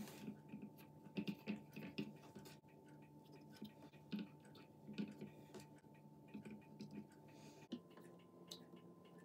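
Faint small clicks and light scraping of standoffs being screwed onto a Raspberry Pi board's mounting screws, turned by hand and then with a small nut driver. A faint steady high whine sits underneath, shifting slightly in pitch near the end.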